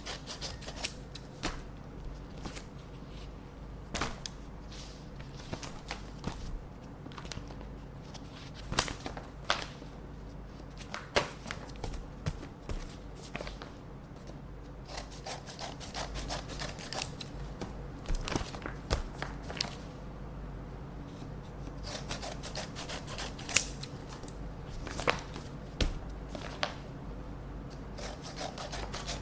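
Scissors cutting open paper envelopes: a run of short, crisp snips in quick clusters, with paper rustling as the letters are handled.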